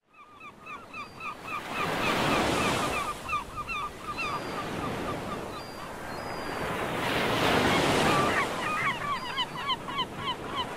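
Rushing surf-like noise that swells and fades twice, under a flock of birds calling in quick short notes, four or five a second, the calls growing busier near the end. It fades in at the start.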